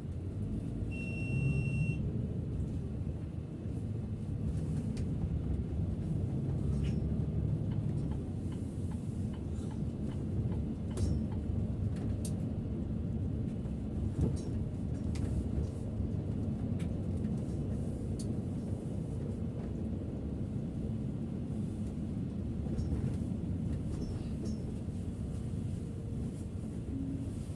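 Steady low rumble of a Setra S 531 DT double-decker bus driving, heard from the driver's seat, with an electronic beep lasting about a second, about a second in.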